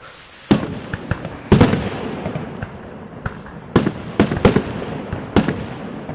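Aerial fireworks shells bursting: a string of loud, irregular bangs, about eight in six seconds, each trailing off in an echo, with lighter crackles in between.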